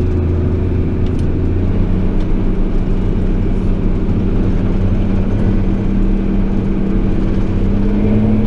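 JCB Fastrac 8250 tractor's 8.3-litre engine running steadily under way, its pitch creeping slightly higher towards the end.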